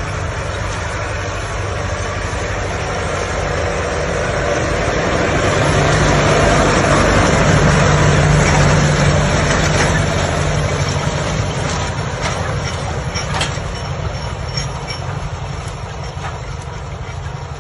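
A New Holland tractor's diesel engine running steadily. It swells louder about a third of the way in, then eases back down.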